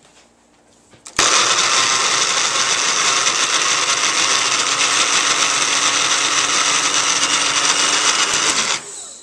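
Small bullet-style personal blender, its cup pressed down onto the motor base, running steadily and chopping hard pieces of horseradish root. It starts about a second in and cuts off shortly before the end.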